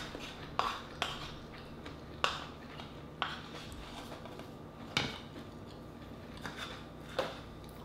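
A wooden spoon knocking and scraping in a wooden rice bowl, with about six sharp separate clicks spread across the few seconds.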